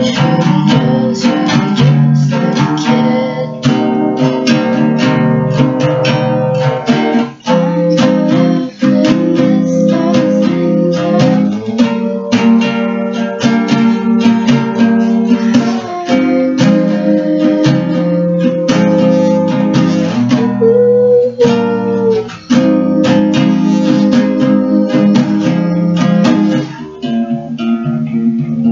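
Acoustic guitar being strummed and picked through a chord progression, with no singing.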